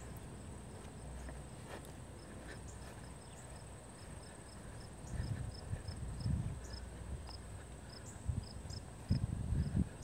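Meadow insects trilling: a steady high-pitched drone with short chirps repeating a couple of times a second. Low thuds and rumbles come in during the second half.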